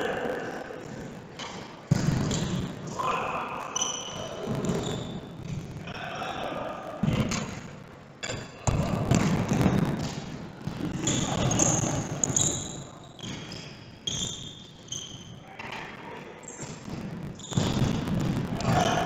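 Futsal ball being kicked and bouncing on a sports-hall floor during play: sudden thuds at irregular intervals, a few seconds apart, over the ongoing noise of the game.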